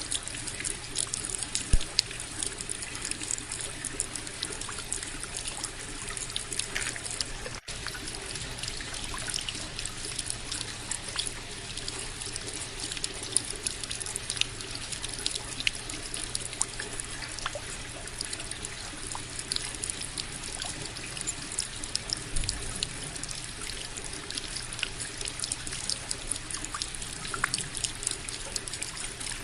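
Indoor tabletop water fountain running: water trickling and pouring steadily into its basin, with many small splashes and drips.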